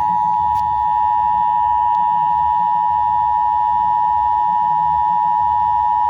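Emergency Alert System attention signal: one loud, steady, unbroken tone, the signal that introduces a broadcast emergency alert.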